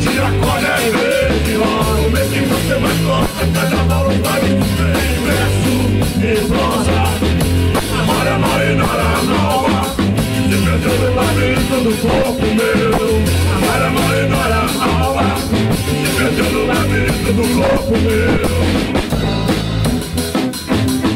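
Rock band playing an instrumental passage: a drum kit with steady cymbal and drum strokes over an electric bass line.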